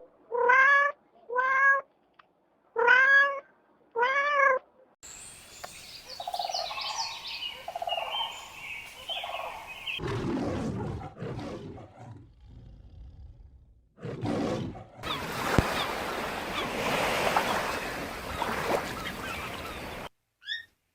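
A series of short animal cries. Four separate pitched calls, each rising and falling, come in the first few seconds. Clips with higher overlapping cries and noisier animal sounds follow, changing abruptly.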